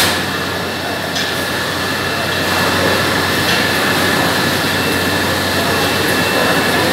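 Steady machinery din of a poultry processing line, with the overhead shackle conveyor and plant equipment running: a constant low hum under a steady high whine, with a couple of faint clanks.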